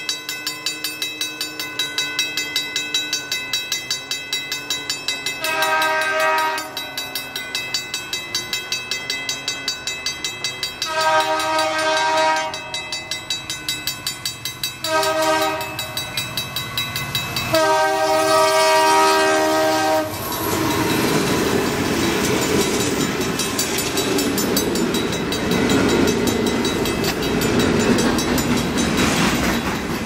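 A crossing bell rings steadily while an approaching CN freight train's EMD SD75I locomotive sounds its multi-note air horn in the grade-crossing pattern: long, long, short, long. After the last blast the train passes close by, with loud rushing noise and wheels clacking over the rail joints.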